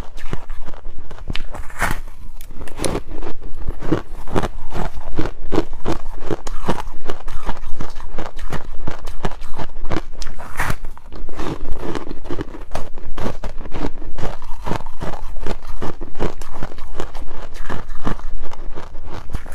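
Ice being bitten and chewed: a steady run of quick, irregular crisp crunches, with a few sharper cracks.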